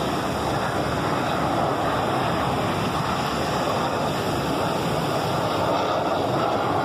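Steady roar of aerobatic planes' engines overhead, mixed with surf and wind.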